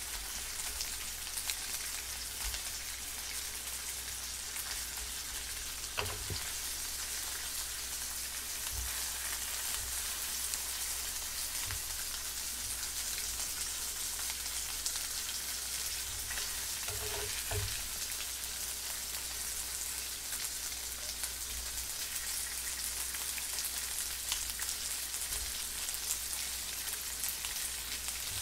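Thick slices of pork belly sizzling steadily in a frying pan, with a few light metal clicks from the tongs and scissors handling the meat.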